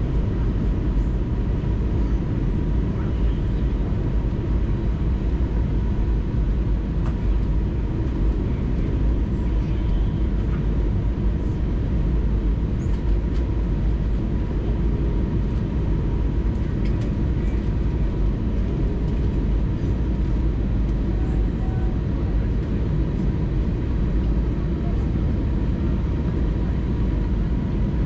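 Steady cabin noise inside an Airbus A320neo on its approach: a dense low rumble of airflow and the Pratt & Whitney PW1100G geared turbofans, with a faint steady high hum over it.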